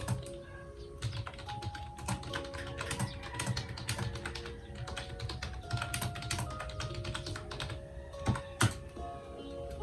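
Typing on a computer keyboard: quick, irregular key clicks, with two louder key strikes near the end.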